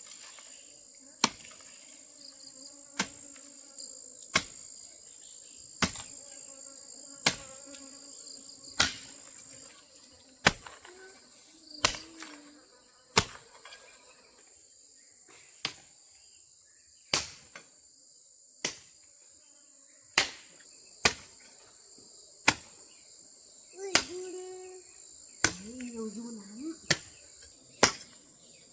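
Unhurried, regular strikes of a tool on wood, about one every second and a half, over a steady high-pitched drone of insects.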